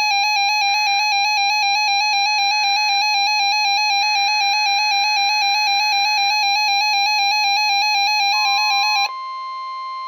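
Weather radio receiver's warning alarm: a harsh electronic tone, pulsing rapidly and evenly, that cuts off sharply about nine seconds in. It marks the weekly test of the NOAA Weather Radio warning alarm. Near the end only the broadcast's steady 1050 Hz alert tone is left.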